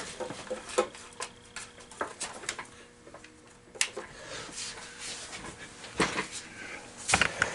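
Scattered clicks and knocks of hands handling a bill validator and plugging a connector into a bench power supply, with two sharper clicks near the end.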